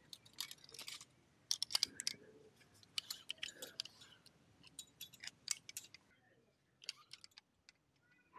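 A rock climber's metal gear, carabiners and quickdraws, clinking and rattling on the harness, mixed with scrapes of hands and shoes on the rock, in irregular clusters that thin out near the end.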